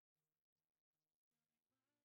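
Near silence: the soundtrack is effectively blank.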